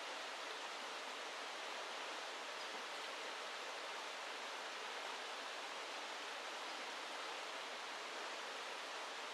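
Steady rush of a small river running over rocky riffles.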